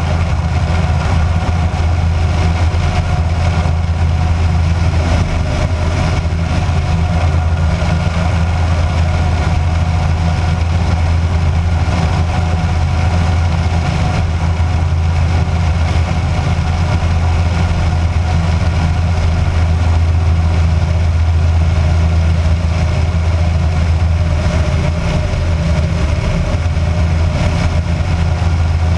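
Kitfox light aircraft's engine and propeller droning steadily in level flight, under a constant rush of airflow.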